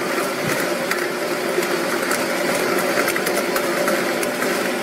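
MH-2000-S stainless-steel stone grinder running steadily, its electric motor humming, with a scatter of light clicks over the hum.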